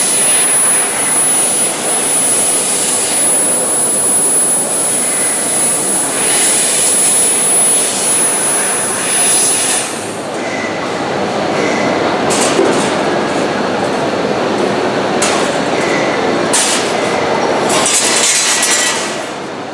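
Fiber laser cutting machine running: a loud, steady hissing machine noise with a thin high whine that cuts off about ten seconds in. After that come several short, louder hisses.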